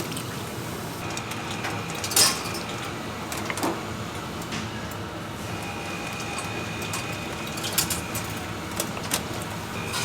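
Kitchen machinery running steadily with a faint high whine that comes and goes, and scattered sharp clicks and knocks, the loudest about two seconds in.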